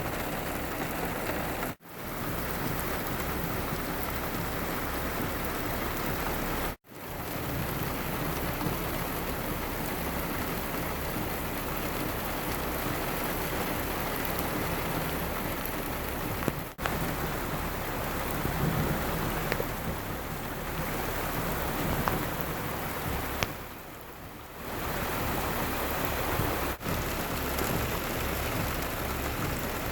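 Steady rain falling, an even hiss broken by four brief near-silent gaps where the sound cuts out for a moment.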